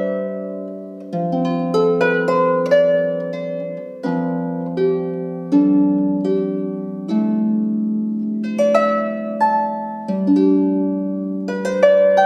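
Harp playing a simple, calming melody over rolled chords, each note plucked and left to ring and fade, with a new chord every couple of seconds.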